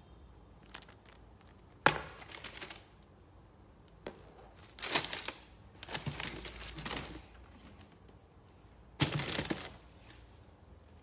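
Sneakers being handled and set down in their cardboard shoebox: four short bursts of rustling and crinkling, two of them opening with a sharp knock.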